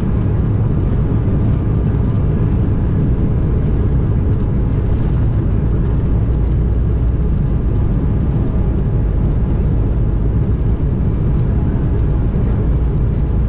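Steady cabin noise of an Embraer E190 airliner heard from inside the cabin: the rumble of its General Electric CF34 turbofan engines and the rush of air, even and unbroken, heaviest in the low range.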